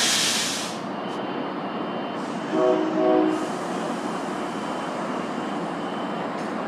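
A Tri-Rail commuter train at a station: a loud hiss at the start, then two short blasts of the train horn about two and a half seconds in, over the steady running noise of the train.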